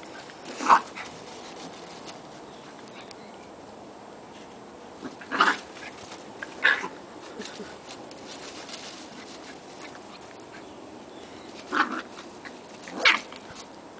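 Puppies yipping at play: five short, high yips spaced a few seconds apart.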